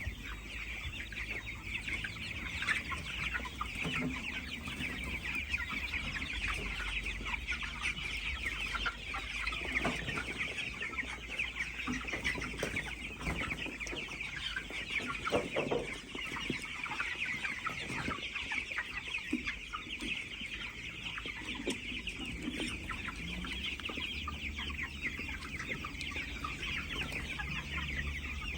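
A flock of chickens in a pen keeps up a dense, continuous chatter of high-pitched cheeps and clucks, with a few brief knocks in the middle.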